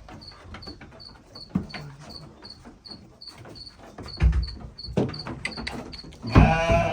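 A steady, high-pitched chirping of an insect, about three chirps a second, with a few low thumps. Near the end a sheep gives one loud, quavering bleat.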